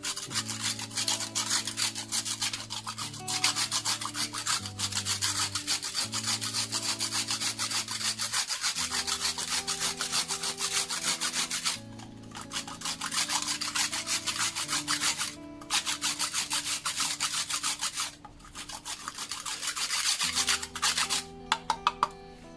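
Fast, rough scraping strokes in long runs that break off briefly three times, over soft background music.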